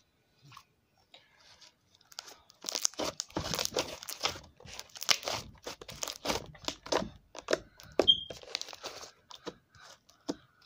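Irregular crinkling and crunching from something being handled close to the microphone, starting about two and a half seconds in, with a brief high squeak about eight seconds in.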